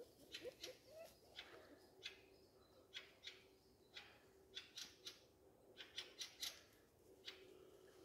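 Faint footsteps rustling and crackling through forest grass and undergrowth, in an uneven run of soft crackles about two a second.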